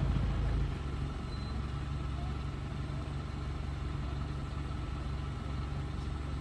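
A vehicle engine idling steadily, a low hum with a few held tones; it drops in level a little under a second in and then runs on evenly.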